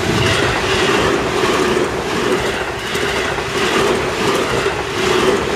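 Seibu Ikebukuro Line electric commuter train passing close by, loud and steady, its wheels clattering over the rail joints in a repeating rhythm.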